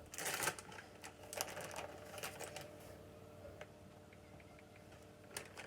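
Kitchen handling noises: a few short rustles and light clacks in the first couple of seconds, then a faint steady hum with a couple of small clicks near the end.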